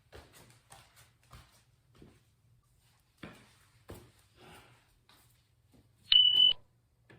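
Faint clicks and taps, then about six seconds in a single short, loud electronic beep, one steady high tone, from the air-conditioner's control as the AC is switched on.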